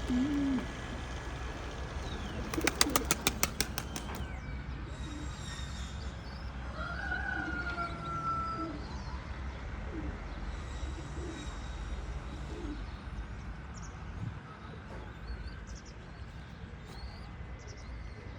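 Domestic pigeons cooing, with a quick run of about ten wing claps about three seconds in, and faint chirps after.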